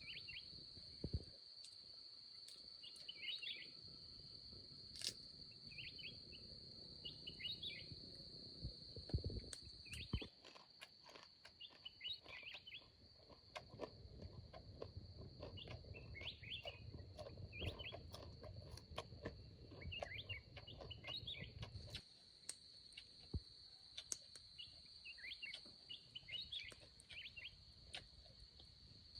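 Forest ambience: a steady high insect drone with short bird chirps repeating every second or two. Scattered light clicks and taps, and a low rumble that comes and goes, lie underneath.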